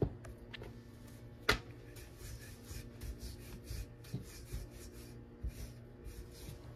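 Rolling pin rolling out a stuffed potato paratha on a board: soft, repeated rubbing strokes, with a sharp knock about a second and a half in.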